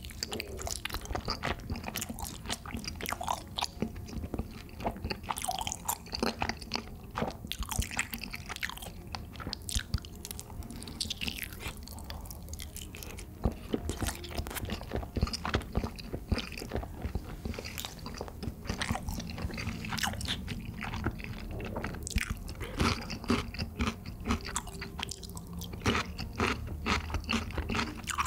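Close-miked biting and chewing of fried chicken and a sauce-glazed skewer, with many irregular crisp crunches.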